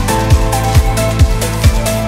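Background electronic music with a steady kick-drum beat, about two beats a second.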